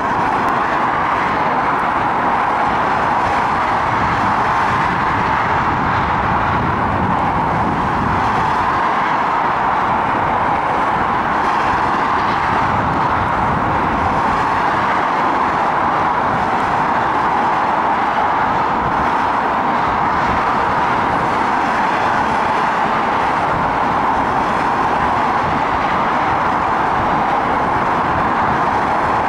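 Steady, even mechanical noise of distant traffic and an NIR 111 Class diesel locomotive hauling ballast hopper wagons at low speed, holding level with no distinct events.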